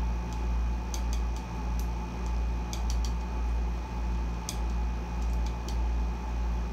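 Air conditioner running on full blast, a low steady hum that swells and fades about once a second, with a scattering of light sharp clicks and taps over it.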